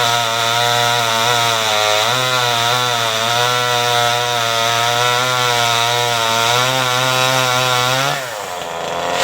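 Two-stroke chainsaw running at high revs while cutting through a mango tree branch, its pitch sagging and recovering repeatedly under load. Near the end it drops off throttle briefly, then revs up again.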